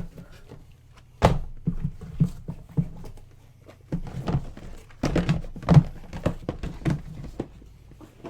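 Sealed cardboard trading-card hobby boxes being handled and set down on a table: a run of irregular knocks and thunks, the sharpest about a second in.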